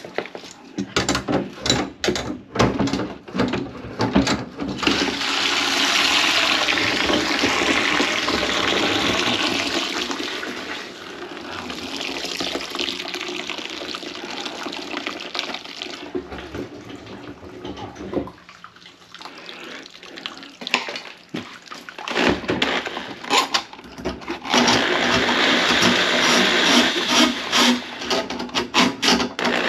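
Water rushing through the plugged kitchen sink's drain plumbing in two long stretches, with knocks and clatter of handling under the sink at the start and again shortly before the second stretch.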